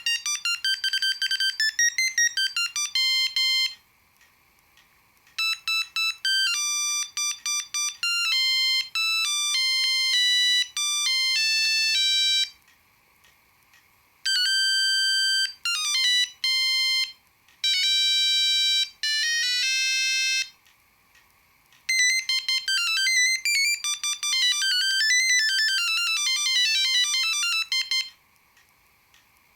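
Ericsson T20e mobile phone playing its built-in ringtones one after another, each a short beeping melody played one note at a time. Several different tunes go by, each lasting a few seconds, with short pauses between them.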